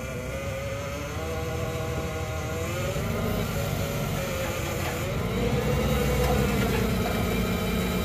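Old forklift's engine working under the load of a small crawler dozer on its forks, its note rising and falling with the throttle and climbing about five seconds in.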